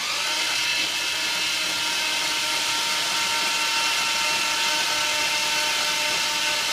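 Starter motor spinning the rebuilt Bentley 6.75-litre V8 over with the spark plugs out: a steady, even whirring whine. The engine is being cranked to prime the oil system and build oil pressure.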